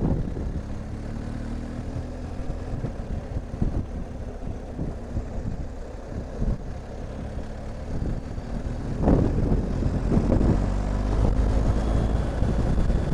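BMW R 1250 GS Adventure's boxer-twin engine running while riding, with wind noise over the camera. The sound gets louder about two-thirds of the way through.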